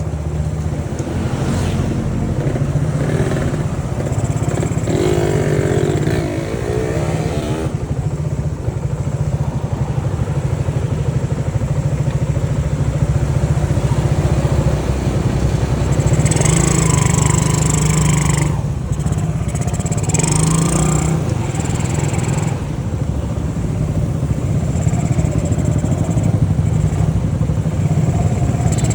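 Honda C70 motorcycle engine running steadily while being ridden, with stretches of louder hiss coming and going over it.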